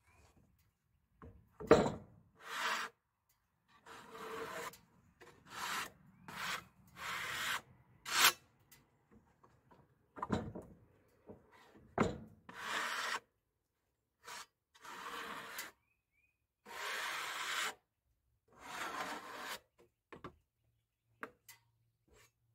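Irregular scraping strokes of a hand-held tool across freshly sawn red oak boards, about a dozen in all, with a few sharp wooden knocks, the loudest about two seconds in.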